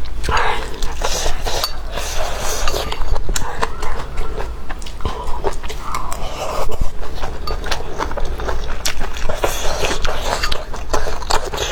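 Close-miked eating: chewing and lip smacking with many sharp, irregular clicks.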